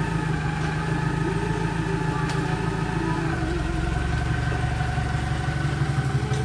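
Car engine idling steadily, its low hum shifting slightly a little past halfway through.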